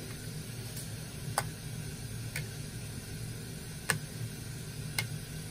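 Boiled orange peels being laid out on a ceramic plate, with five light, irregular clicks against the plate over a steady low hum.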